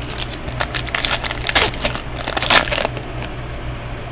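Trading cards and their packaging being handled: an irregular run of crinkles and light clicks, with the sharpest one about two and a half seconds in. A steady low hum sits underneath.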